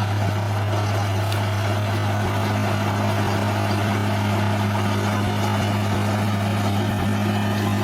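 Diesel engine of a heavy earthmoving machine running at a steady speed, a low even drone with no change in loudness.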